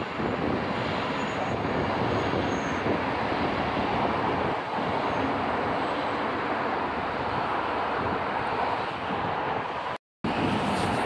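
Red double-deck regional train's coaches running past on the tracks below, with a steady, loud noise of wheels on rails. The sound breaks off briefly near the end.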